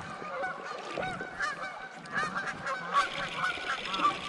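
Many short bird calls overlapping in a chorus. About three seconds in, a steady hiss joins them.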